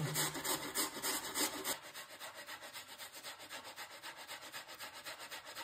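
Cucumber pieces being grated on a handheld metal grater: quick, even, rhythmic rasping strokes that grow quieter about two seconds in.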